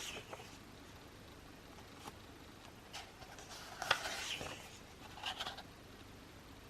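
Pages of an album photo book being turned and handled: a few faint paper rustles and light taps, the sharpest one about four seconds in.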